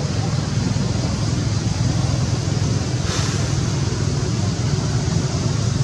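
Steady low rumbling outdoor background noise, with a brief hiss about three seconds in.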